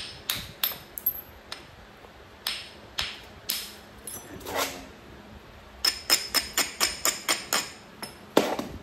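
Sharp clicks and taps of a copper bopper against Texas root beer chert as it is knapped: a few spaced taps, then a quick run of about nine light taps about six seconds in, and one harder strike near the end.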